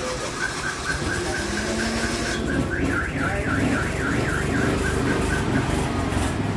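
Car alarm sounding: a run of short high beeps, about four a second, breaking into a warbling rise-and-fall for about a second and a half midway, over a car engine idling.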